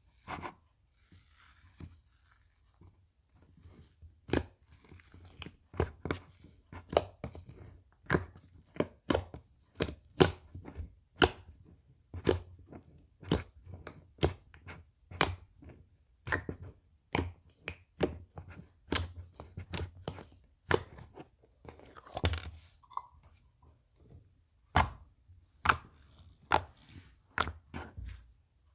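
Slime being squeezed and pressed by hand, giving a run of sharp crunchy pops and crackles, about one and a half a second, starting after a few quieter seconds.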